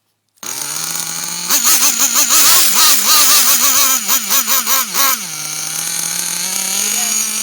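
Nitro RC car's small glow-fuel two-stroke engine starts running about half a second in, is revved up and down in quick blips for several seconds, then settles back to a steady high idle.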